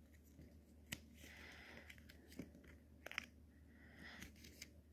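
Faint crackling and rustling of two paper strips being folded over each other by hand, with a few short, sharp clicks as the folds are pressed down.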